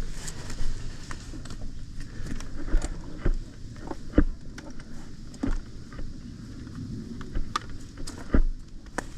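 Footsteps and knocks of gear from a player carrying a body-worn camera, irregular sharp knocks about once a second, some with a dull thud, over a steady low rumble.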